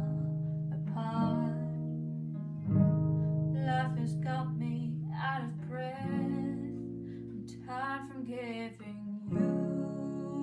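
Acoustic guitar played slowly, a chord struck and left to ring every few seconds, with a young woman singing a slow ballad over it.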